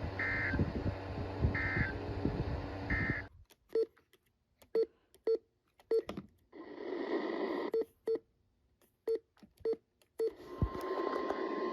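Weather radio receiver sending the EAS end-of-message code: three short warbling data bursts over radio hiss, a little over a second apart. The hiss then cuts off to near silence broken by short sharp blips and a brief burst of static. Near the end the hiss returns and a steady tone comes in.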